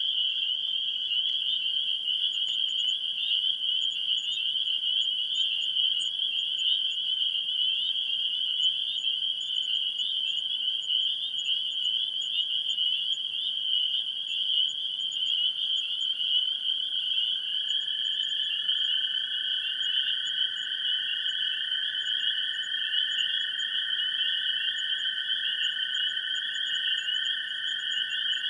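Continuous dense chorus of calling animals, frog-like by its tags: a steady high trill of many overlapping callers, with a lower chorus that grows stronger from about halfway through.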